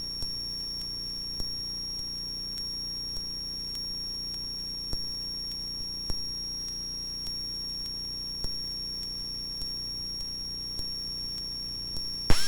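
Steady high-pitched electrical whine with a low hum beneath it, on the cockpit radio and intercom audio of a Cessna 172RG between transmissions, with faint ticks about once a second.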